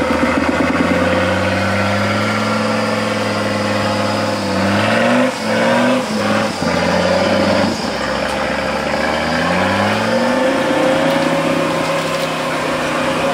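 Off-road trial vehicle's engine running under heavy load as it crawls through a deep mud rut. The revs rise in surges twice, about four to five seconds in and again near ten seconds, with brief drops in between.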